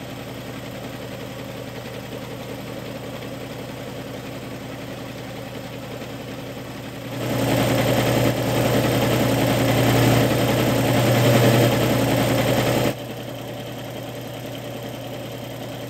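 Sears Craftsman piston air compressor running steadily, its pump giving a low, even mechanical hum. It gets clearly louder for about six seconds in the middle, the change starting and stopping abruptly.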